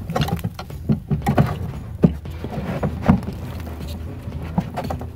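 Irregular clicks, knocks and scrapes of hands working on parts up under a car, over a steady low hum.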